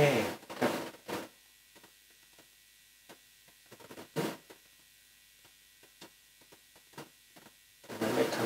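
Low steady electrical hum with scattered faint clicks and a few brief louder sounds; music with drums comes in near the end.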